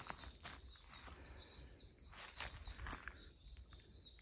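Birds chirping in rapid series of short, high notes, with a few crunching footsteps on dry leaf litter.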